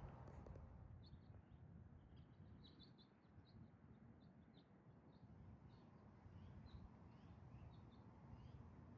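Near silence with faint, quick bird chirps repeating throughout, over a low steady rumble.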